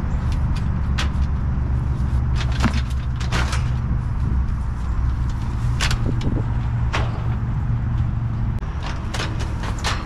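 A hand truck carrying an old air-conditioner condenser is wheeled over grass. Its metal frame and the unit's panels give scattered clicks and knocks, with a cluster near the end, over a steady low mechanical hum.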